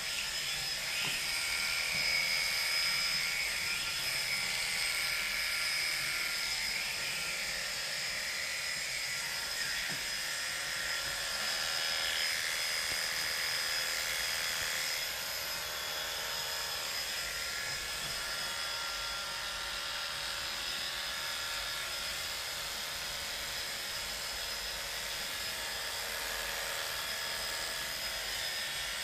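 Electric pet hair clippers running with a steady, even buzz while trimming a cat's fur.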